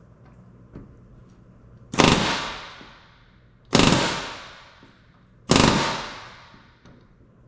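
Pneumatic rivet gun driving solid aluminium rivets into the sheet-metal structure of a Van's RV-10 horizontal stabilizer against a bucking bar. It fires in three short, loud bursts about two seconds apart, each ringing out through the aluminium for about a second.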